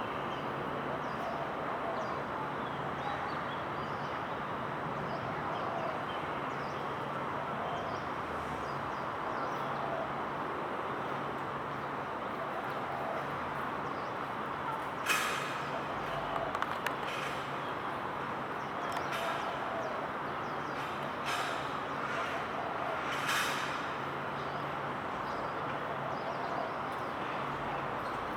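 Steady outdoor vehicle and traffic hum, with a low drone coming and going and a few brief sharp knocks or clicks in the second half.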